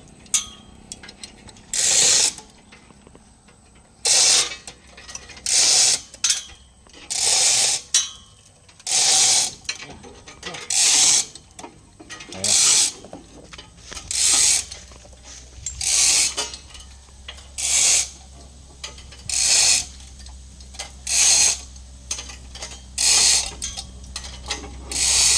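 Manual chain block (chain hoist) ratcheting in short clattering bursts, one about every two seconds, as its hand chain is pulled in strokes to move the truck's engine on its hook.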